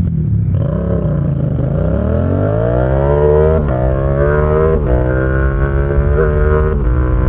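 Yamaha XSR700's 689 cc parallel-twin engine through an SC Project exhaust, easing off, then accelerating hard. Its note rises and is cut briefly twice by quick clutchless quickshifter upshifts, each followed by a slight drop in pitch. It then pulls on more steadily.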